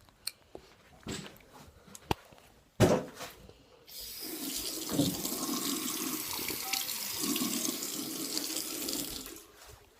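A few light clicks and a knock, then a water tap running steadily for about five seconds before it is turned off.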